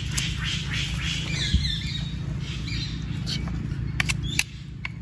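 Dry leaf litter rustling and a few sharp handling clicks while a wild mushroom is cut out with a knife and gathered, over a steady low rumble that drops away near the end. Birds chirp briefly in the background.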